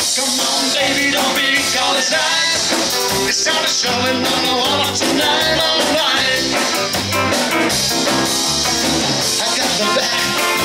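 A live rock and roll band playing electric guitars and a drum kit, with a man singing.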